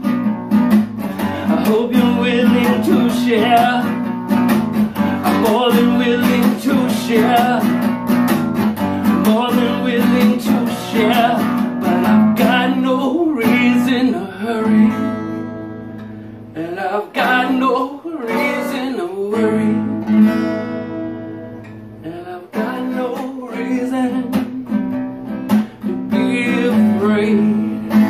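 Acoustic guitar strummed in a steady rhythm; about halfway through it drops to a quieter, sparser passage of ringing chords for several seconds before full strumming returns.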